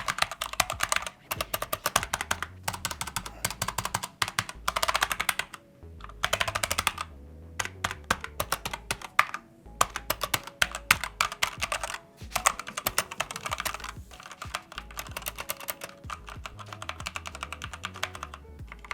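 Typing on a Gamepower Ogre RGB mechanical keyboard with Outemu red linear switches: fast runs of key presses broken by short pauses. It gives a less full, high sound than blue switches.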